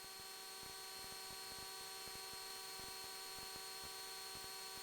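Faint steady electrical hum and whine, several fixed tones over a light hiss, with scattered faint crackles: line noise on the aircraft's audio feed.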